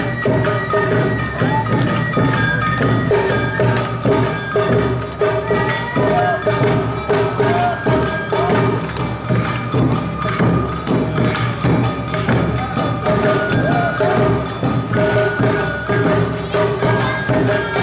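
Awa Odori narimono band playing live: a fast, steady two-beat rhythm of drums and clanging kane hand gongs under held shinobue flute notes.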